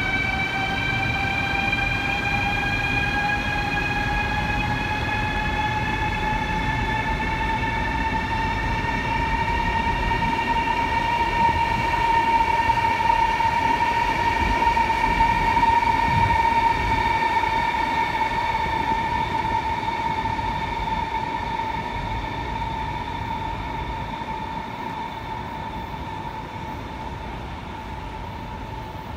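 CRH high-speed electric train running through a station: a whine from its electric traction drive that rises in pitch over the first several seconds and then holds steady, over a low rumble of the running gear. It grows louder toward the middle and fades slowly near the end.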